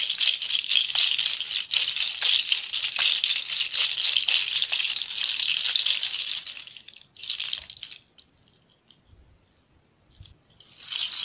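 Hoof rattle (chocalho) of goat and sheep hooves strung beneath a kid-goat skull, shaken steadily for about six and a half seconds so the hard hooves clatter together in a dense, dry rattle. It is followed by a short shake a second later and another just before the end.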